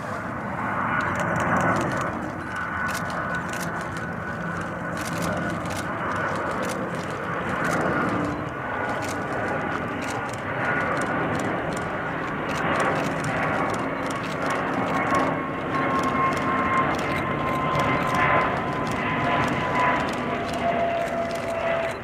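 Airbus A300-600ST Beluga on final approach, its two General Electric CF6-80C2 turbofans running at approach power: a steady jet roar with an engine whine that slowly falls in pitch over the last several seconds as the aircraft descends towards touchdown.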